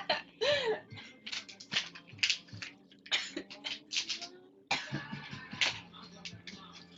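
A girl's short, sharp coughs and breaths, a dozen or so irregular bursts in quick succession.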